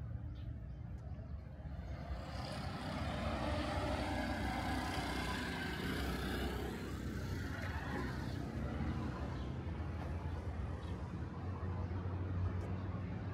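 A vehicle passing by: its noise swells about two seconds in, is loudest a few seconds later with some gliding tones, then fades, over a steady low traffic rumble.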